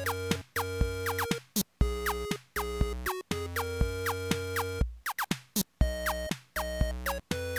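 Background electronic music: short synthesizer notes with quick sliding pitches over a steady beat.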